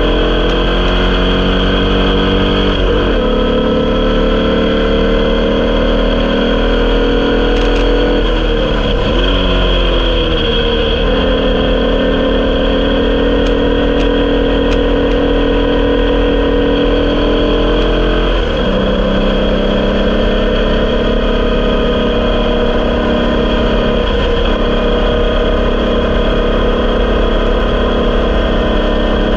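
Air-cooled VW 1200cc flat-four of a Elfin Crusader Formula Vee racing car at racing speed, heard from onboard. Its pitch climbs steadily under load and drops sharply at gear changes about three, eighteen and twenty-four seconds in, with a brief lift and dip around nine seconds in.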